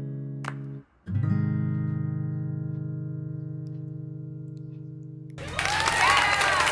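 Background music: acoustic guitar chords strummed and left to ring out, with a new chord struck about a second in. Near the end, applause sets in over it.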